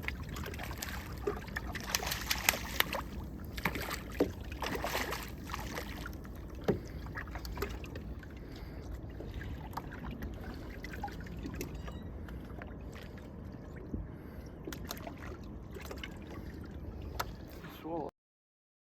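Water lapping and trickling against a small fishing boat's hull, with scattered small clicks and knocks; the sound cuts off abruptly near the end.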